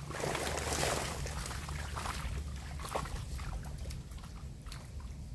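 Water splashing and sloshing as a mesh fish trap net is handled in shallow water at the bank. The splashing is loudest in the first second or so, with a sharp splash about three seconds in and smaller irregular splashes in between.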